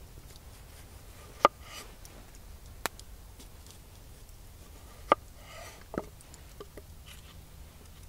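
Kitchen knife slicing a cucumber lengthwise on a wooden cutting board: a few sharp knocks as the blade comes through onto the board, the loudest about a second and a half in, with faint crunching of the cucumber between them.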